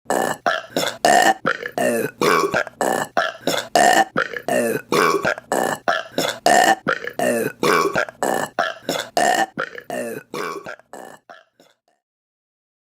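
A rapid run of short burps, about two and a half a second, fading out about eleven seconds in.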